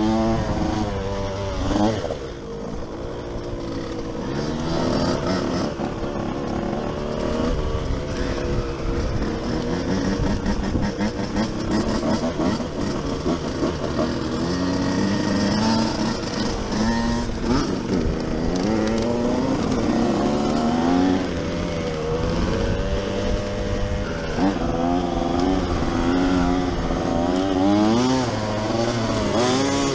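2006 KTM 105 SX two-stroke single-cylinder engine being ridden hard, revving up and dropping back again and again as it goes through the gears.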